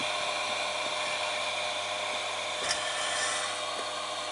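Hot air soldering gun blowing steadily, a hiss with a steady whine from its fan. A light tap about two-thirds of the way in.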